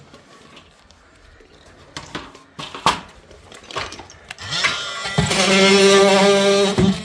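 A few knocks and clicks, then about five seconds in a Makita oscillating multi-tool starts and runs with a loud steady buzzing drone, dipping briefly near the end.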